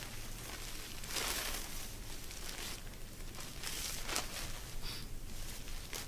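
Fabric of a shelter half rustling in several short bursts as it is handled and spread out.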